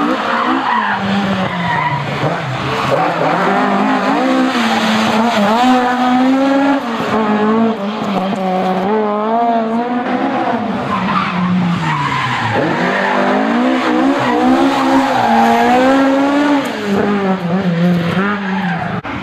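Ford Escort RS1600 rally car's four-cylinder engine driven at full throttle, its pitch climbing and dropping again and again through gear changes and braking, with a deep drop about two-thirds of the way through.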